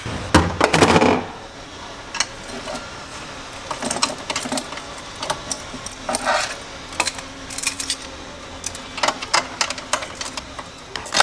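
A loud clatter in the first second, then scattered sharp metallic clicks and short runs of clicks as hand tools work at the steering column's fittings to unbolt and drop it.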